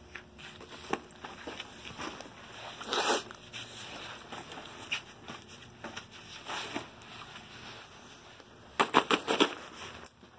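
Nylon backpack rustling, with its straps and fittings knocking, as it is handled and put on. The rustles are scattered, with the loudest in a quick cluster near the end.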